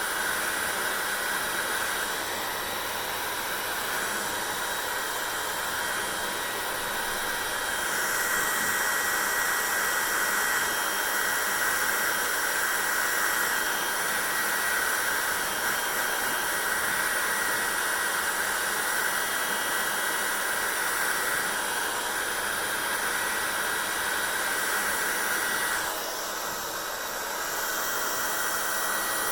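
Hair dryer running steadily: a constant rush of blown air with a thin high whine. The sound gets brighter and a little louder about eight seconds in, and dips briefly near the end.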